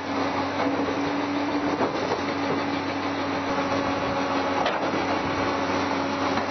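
Diesel engine of an L&T-Komatsu tracked excavator running steadily, with a constant low hum. There is one short click about two-thirds through.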